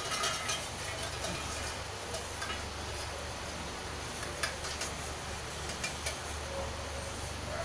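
A few scattered sharp clicks and light rattling from popcorn in a small stainless-steel saucepan as it is tipped and shaken, over a steady low hum and hiss.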